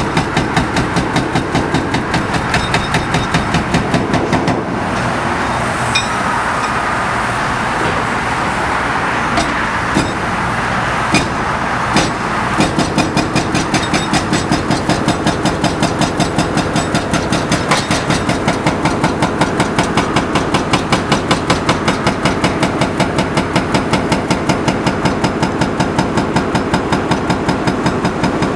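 Excavator-mounted hydraulic hammer breaking up a bridge overpass, pounding in a fast, even rhythm of about three blows a second. The blows stop about five seconds in, leaving the machine's engine running with a few single knocks, and start again about twelve seconds in.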